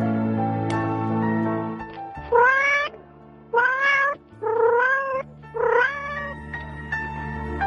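Soft background music, then four short mew-like animal calls, each rising in pitch and then levelling off, spaced about a second apart from about two seconds in.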